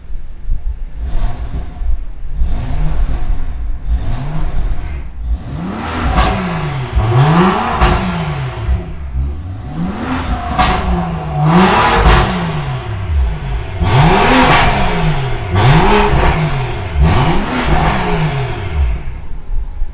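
BMW M2's turbocharged straight-six, fitted with a valved catback and catless downpipes, revved in a long series of quick blips, about one a second, each rise and fall in pitch. The blips are lighter in the first few seconds, then louder. The exhaust valves are set to open automatically above 2500 rpm.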